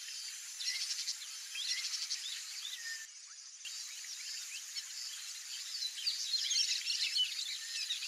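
Many birds chirping in a dense, overlapping chorus of short, quick high notes, with a brief lull about three seconds in.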